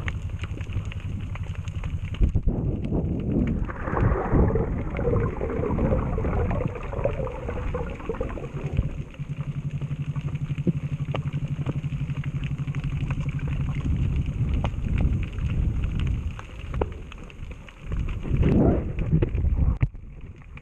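Underwater water noise heard through a camera's waterproof housing: a steady low hum with a fast even pulse, and louder stretches of rushing and bubbling water about four seconds in and again near the end as the diver swims up toward the surface.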